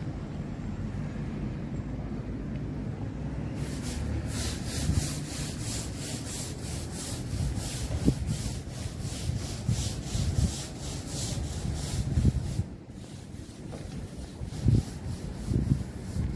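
A rhythmic scraping hiss, about three strokes a second, starts a few seconds in and stops abruptly about three-quarters of the way through. Under it runs a steady low street rumble with a few dull thumps.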